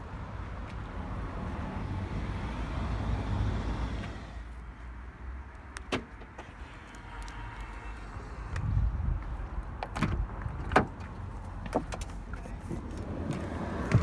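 A low rumble for the first few seconds, then clicks and knocks from the Vauxhall Grandland X's driver's door as it is opened and someone climbs in. A sharp knock comes near the end, as the door shuts.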